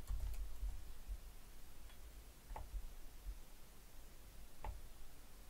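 Quiet room tone with a low hum and a few faint, short clicks, the clearest about two and a half and four and a half seconds in: computer keyboard and mouse clicks as a spreadsheet formula is entered and dragged across.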